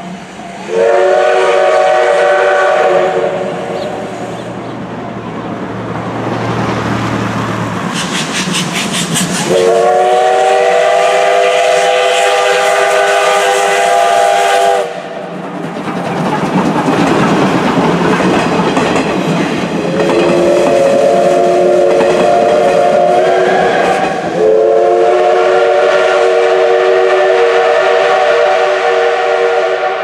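Steam whistles of the double-headed C12 66 and C11 325 steam locomotives blowing four blasts as the train passes at speed: a short first blast, then three long ones, the third rising slightly in pitch just before the last begins. Between the blasts, a loud rush of exhaust and steam from the working locomotives.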